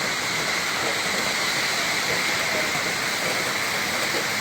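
Heavy rain falling steadily: a constant, even hiss of downpour with no breaks.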